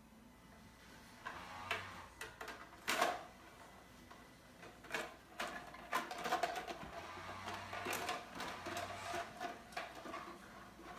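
Scattered light clicks, taps and rustles of a toy bow and plastic suction-cup arrows being handled and moved about, with louder knocks about two and three seconds in and busier clattering in the second half.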